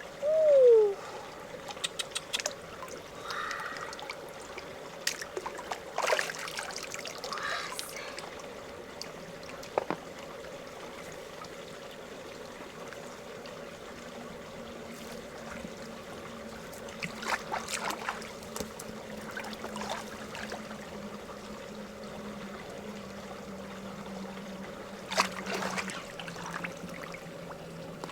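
Water trickling with scattered small clicks and taps over a steady low hum. Near the start a short falling squeak is the loudest sound.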